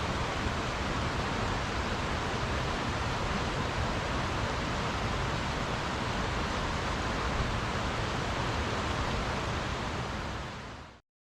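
Steady, even rushing noise with no distinct events, fading out and cutting to silence about a second before the end.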